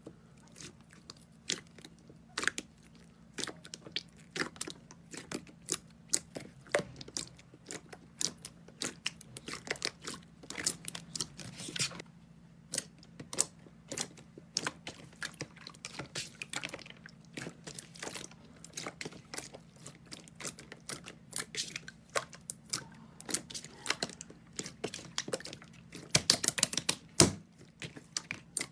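Slime being squished and pressed, giving a dense, irregular run of sticky crackles and pops that grow busier and louder near the end, over a faint low hum.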